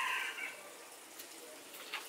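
The tail of a rooster's crow, a pitched call that fades out about half a second in, followed by faint background with a few light clicks.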